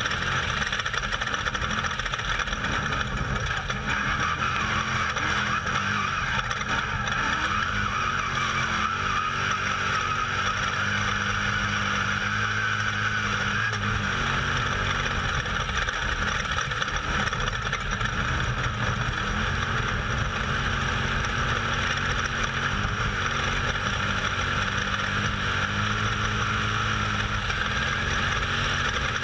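Off-road race vehicle's engine running hard, heard from on board, its pitch rising and falling with the throttle over a steady rushing noise.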